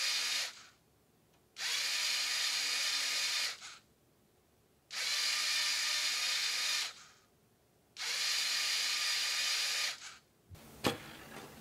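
Small electric motor and plastic gear train of a LEGO Technic cam mechanism whirring in runs of about two seconds, with pauses of about a second between them, each run stepping the mechanical display to its next digit. One run ends just after the start and three more follow, then a few sharp clicks near the end.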